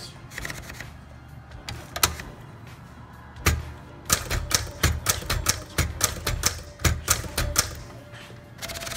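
Keys striking on a 1965 Smith Corona Galaxie II manual typewriter during a type test. A few separate keystrokes come first, then from about four seconds in a run of typing at about four strikes a second.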